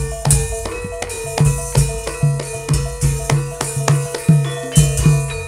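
Javanese gamelan (karawitan) music: repeated deep drum strokes, two to three a second, over ringing bronze metallophone and gong tones. The drumming stops near the end, leaving a bronze tone ringing on.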